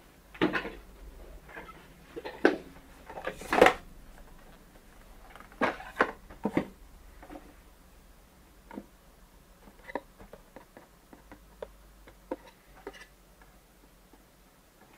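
Retail box and packaging being handled and opened by hand: irregular knocks, scrapes and rustles, heavier in the first half, then lighter scattered ticks and taps.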